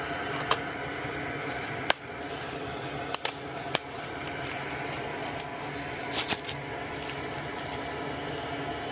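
A parcel being opened and its contents handled by hand: scattered sharp clicks and taps, a few close together around three seconds in and a short cluster around six seconds in, over a steady background hum.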